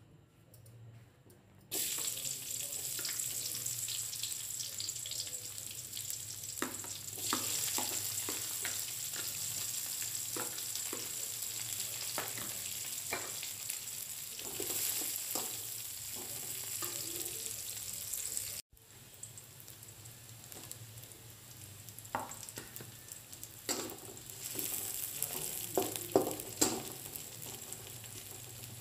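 Sliced shallots, spring onion and chilies sizzling in hot oil in a wok, the frying starting about two seconds in. Sharp clinks and scrapes of a metal spatula against the wok as the aromatics are stirred, most of them near the end.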